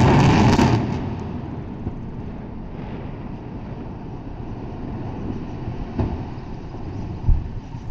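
Controlled demolition of four concrete cooling towers: the explosive charges go off in a loud blast lasting about a second, then a long low rumble as the towers collapse, with two heavy thuds near the end.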